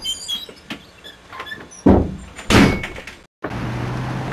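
A door being opened and shut: a few faint squeaks and clicks, then two heavy thuds about two and two-and-a-half seconds in. Near the end the sound switches abruptly to steady outdoor road noise with a low hum.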